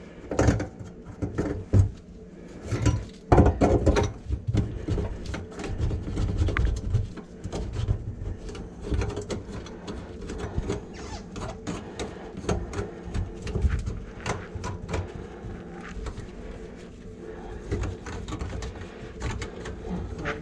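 Metal sink drain parts and tools clanking and knocking as they are handled, loudest in the first few seconds, over a steady low hum.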